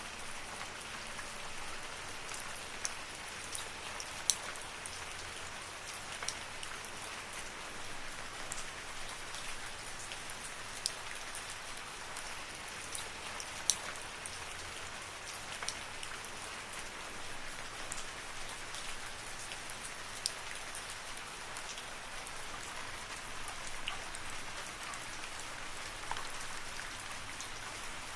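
Steady rain falling in a forest, an even hiss with scattered sharp drips and drop hits.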